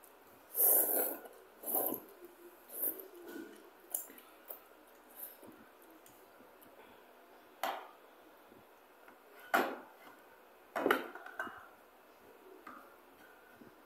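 Spoon and chopsticks clinking and knocking against bowls as noodles are eaten. A cluster of noisy eating sounds comes in the first few seconds, then three sharp separate knocks in the second half.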